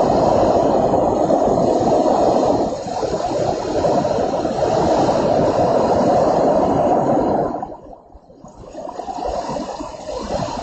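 Loud rushing storm noise of wind and rain, easing sharply for a moment about eight seconds in and then building again.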